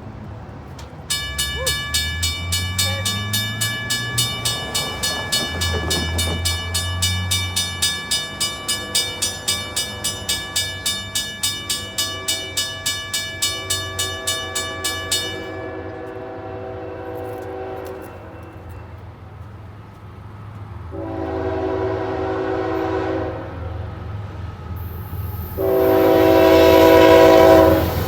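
Railroad grade-crossing bell ringing steadily, stopping about 15 seconds in, over the low rumble of an approaching diesel locomotive. The CSX locomotive's horn then sounds two blasts, the second longer and louder, near the end.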